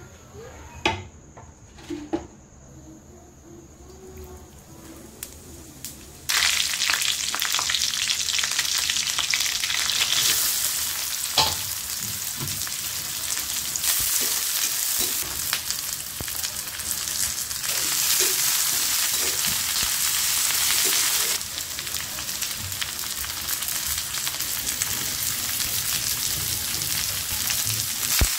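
Mixed vegetables sizzling in hot oil in a pan. The first seconds hold only a few knocks; about six seconds in a loud, steady sizzle starts suddenly and keeps on.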